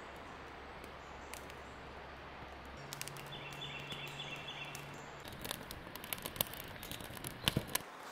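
Quiet outdoor ambience beside a small wood fire, with scattered crackles from the fire. A short, faint bird trill comes a few seconds in, and sharper clicks and knocks come more often near the end.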